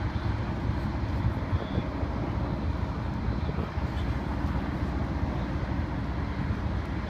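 Steady low rumble of road traffic mixed with wind buffeting the microphone.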